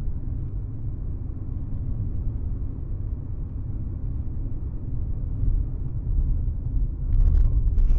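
Steady low road and engine rumble inside a moving car, recorded by a dashcam, growing louder toward the end. A few sharp knocks come about seven seconds in and again just before the end.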